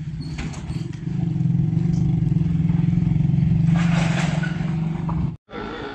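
A vehicle engine running steadily, with a low pulsing drone that grows louder about a second in and cuts off abruptly near the end.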